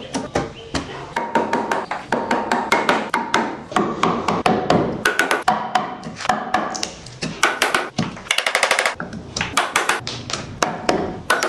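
Rapid, irregular tapping and knocking on wood, typical of hammering or mallet work on a wooden joint, with a quick run of about ten taps a second around eight seconds in.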